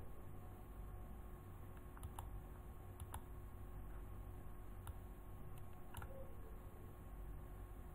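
A handful of faint, short computer mouse clicks spread over several seconds, some in quick pairs, over a steady low hum of room and recording noise.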